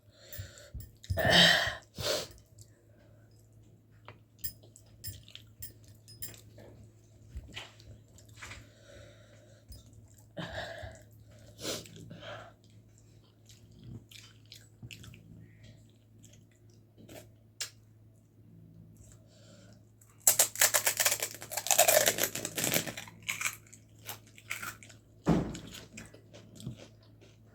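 A person chewing and eating a meal by hand: soft mouth sounds and scattered small clicks, with a few brief louder bursts and a dense, loud run of crunching about two-thirds of the way through. A faint low steady hum lies underneath.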